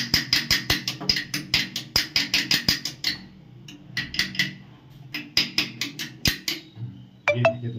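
Rapid metal-on-metal tapping and clicking in spurts as the rusted chrome cover of a wall tap is worked loose with a screwdriver. A single sharp, ringing metallic clink comes near the end.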